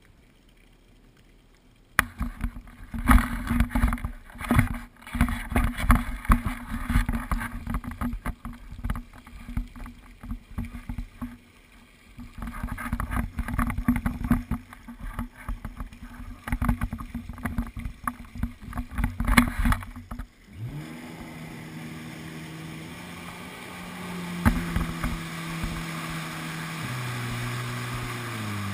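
Jet ski engine under loud, irregular rumbling and buffeting on the microphone while moving slowly. About two-thirds of the way through this gives way to a steady engine note that climbs in pitch in steps as the jet ski speeds up.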